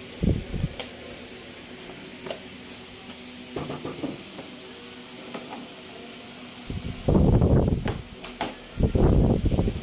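Plastic fairing panel of a Suzuki Burgman Street 125 being pried up with a plastic trim tool: several rough scraping and rubbing noises of plastic on plastic, the two loudest near the end, with a few sharp clicks as the panel's clips let go.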